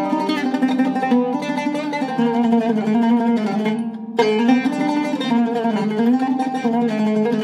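Seven-course Iraqi-style oud with a cedar soundboard and mahogany back, played solo with a plectrum. A quick run of plucked notes, with a brief break about four seconds in before the playing resumes with a strong stroke.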